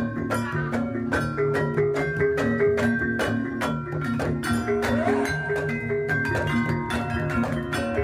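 Jaranan gamelan music: tuned metal percussion holding ringing notes over a drum beat at an even, driving pulse.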